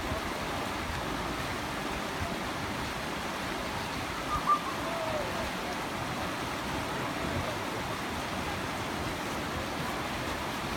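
Firehole River rapids rushing over rocks in a steady, even rush of water. A short thump sounds a little under halfway through.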